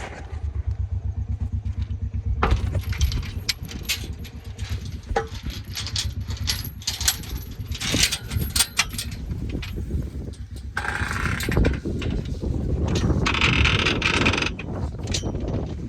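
John Deere Gator XUV 590M utility vehicle's engine running at idle with a steady low pulse, under a string of metallic clicks and knocks. Near the end come two longer rattling bursts.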